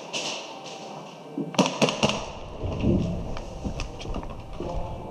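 A cluster of sharp clicks and knocks about one and a half seconds in, and a few more scattered later, over a low rumble of movement and gear handling as the camera's wearer moves quickly.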